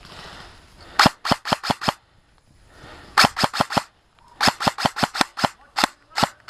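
Airsoft gun firing close to the microphone in quick strings of sharp cracks, about five shots a second: a group of five about a second in, another five around three seconds, a longer string of about eight, then more shots near the end.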